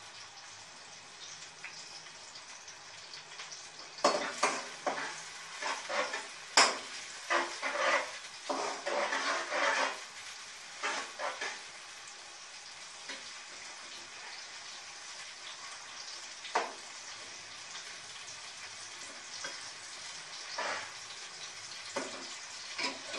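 Sliced onions sizzling steadily in hot oil while they fry toward light brown, with a slotted spatula stirring and scraping against the pot. The stirring comes in a quick flurry of scrapes and knocks from about four to ten seconds in, then only now and then.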